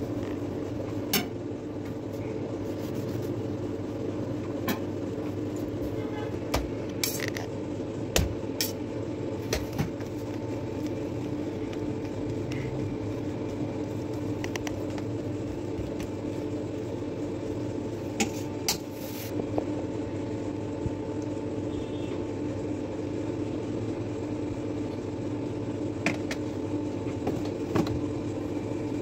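Light clicks and taps of a metal knife against a stainless steel worktop, scattered and in small clusters, over a steady background hum.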